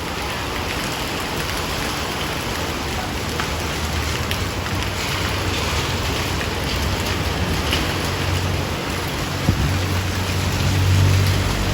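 Heavy rain falling steadily. A low engine hum comes up under it over the last few seconds.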